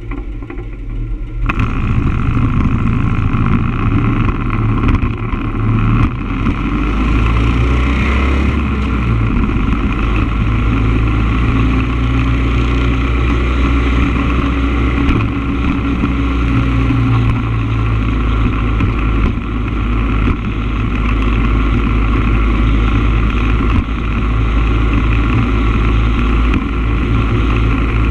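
Motorcycle engine idling at a stop, then pulling away sharply about a second and a half in and running steadily as the bike rides down the road.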